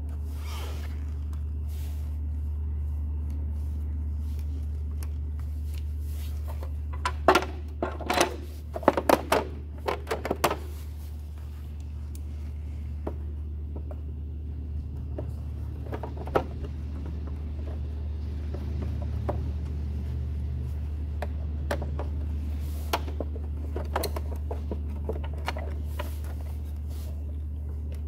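Clicks and knocks of a plastic e-bike battery case and screwdriver being handled during reassembly, with a quick cluster of sharp knocks about seven to ten seconds in and a few scattered clicks later, over a steady low hum.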